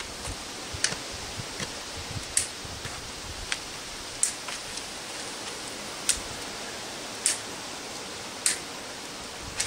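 Side cutters snipping off the loose tails of cable ties fastened along a bicycle frame: about seven sharp snips, roughly one a second, over a steady hiss.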